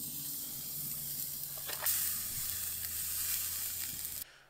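A thick bone-in steak sizzling on a wire grill grate over wood-fire coals, a steady hiss just after it is laid down. There is a click a little under two seconds in, and the sizzle cuts off suddenly near the end.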